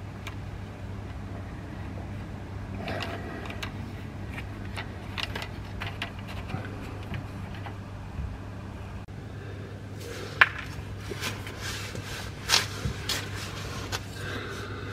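Gloved hands handling a diesel heater's fuel line and fuel pump fittings: scattered light clicks and knocks, busier in the last few seconds, with one sharp knock about ten seconds in, over a steady low hum.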